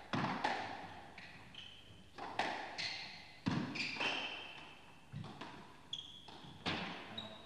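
Squash rally: the rubber ball is struck by rackets and smacks off the court walls, a sharp knock every second or so, with short high squeaks from the players' shoes on the court floor in between.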